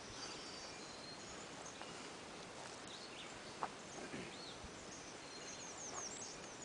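Faint bird chirps, short high notes now and then, over a low steady hush of outdoor ambience, with one light click about three and a half seconds in.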